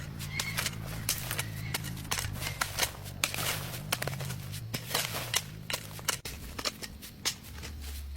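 Irregular rustles, snips and clicks of close handling work, over a low steady hum that drops in pitch near the end.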